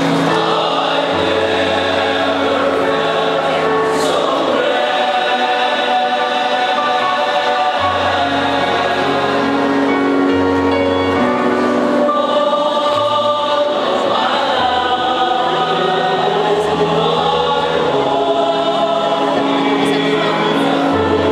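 Male choir of priests singing in several-part harmony, holding long sustained chords that change slowly.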